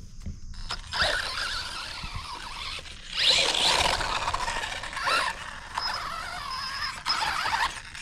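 Brushless motor and gear drivetrain of a 1/16-scale HBX 16889A Pro RC truck whining in repeated bursts as the throttle is worked, the pitch rising and falling with each burst and carrying gear chatter.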